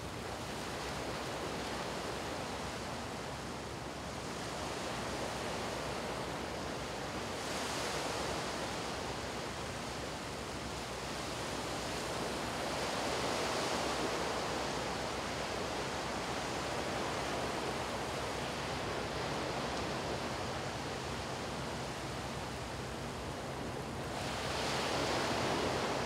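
Small waves washing up onto a sandy beach: a steady surf hiss that swells as waves break, about eight seconds in, again midway, and near the end.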